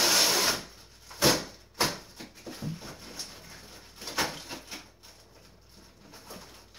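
A large cardboard shipping box being handled and opened: a rasping scrape of cardboard in the first half-second, then a few sharp knocks and smaller rustles and clicks as the flaps and contents are moved.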